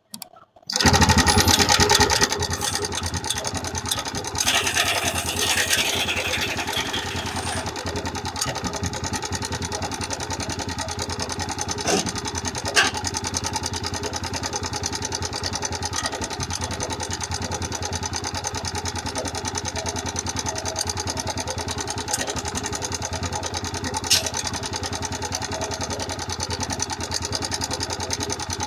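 TVS Raider 125 motorcycle's single-cylinder engine starting about a second in, then running at a steady idle, with a brief rise in revs a few seconds after it starts. This is the engine being checked for a tick-tick engine noise problem.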